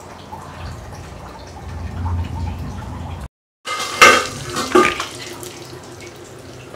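Kitchen cookware and utensils: quiet handling noise at a steel batter bowl, a brief dropout, then a few sharp metallic knocks and clinks about a second apart from pots and utensils.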